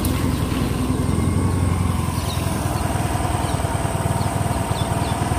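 Motorcycle engine running steadily with an even, fast low putter, heard from the rider's seat.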